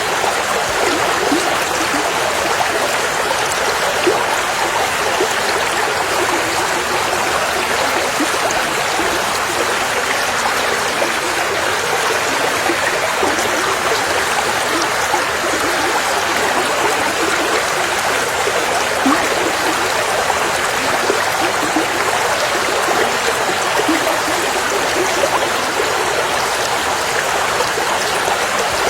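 River water flowing steadily over rocks, a continuous rushing and babbling with small splashes flickering through it.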